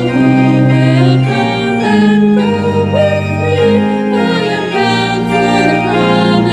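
Two women singing a hymn as a duet over held organ chords.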